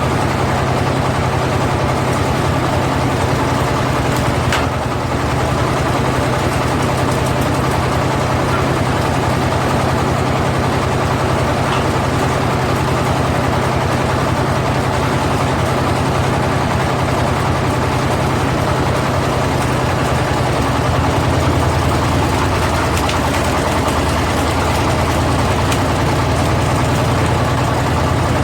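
Walking tractor's single-cylinder diesel engine running steadily while it powers a firewood splitter, with one brief sharp knock about four and a half seconds in.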